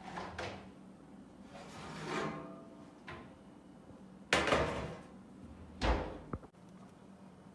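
Kitchen handling noises: a few rustles and a light click, then two loud knocks about a second and a half apart, the second with a dull thud. A faint steady hum runs underneath.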